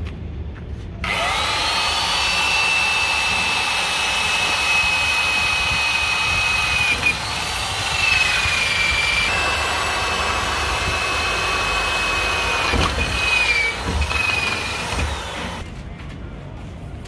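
A corded electric drill bores a hole into a painted steel beam of a solar-panel mounting frame. It gives a steady high whine that starts about a second in, sags in pitch several times as the bit bites into the metal, and stops near the end.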